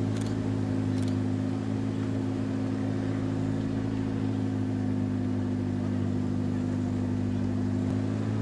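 Motor boat engine running steadily under way, one even drone at a constant pitch.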